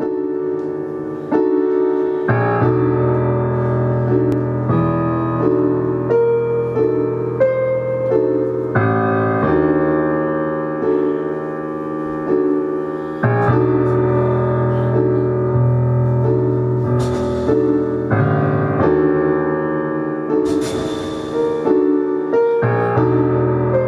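Slow live keyboard music: sustained chords that change every second or two. A few swells of hiss rise over the chords in the second half.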